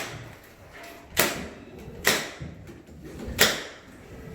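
Milwaukee M18 FUEL 18-gauge narrow crown stapler firing staples through a metal drywall corner angle into the timber frame, four sharp shots about a second apart.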